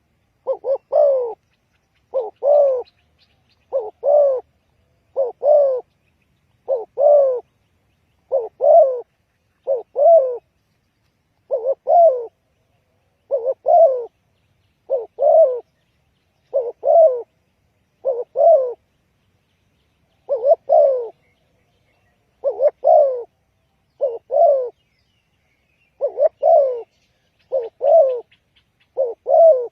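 Spotted dove cooing over and over: about nineteen phrases, one every second and a half or so, each a short coo running into a longer, falling coo.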